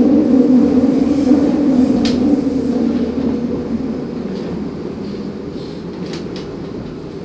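Electric train's running noise dying away: a low hum fading steadily, with a few sharp clicks of the wheels over rail joints.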